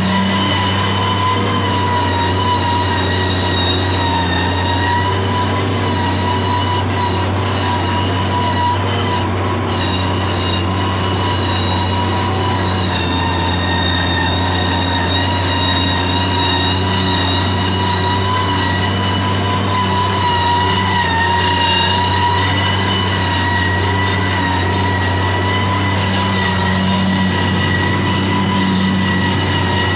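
Valtra 1780 tractor engine running steadily under load, pulling a heavy disc harrow. A constant low drone carries a steady high-pitched whine that wavers slightly.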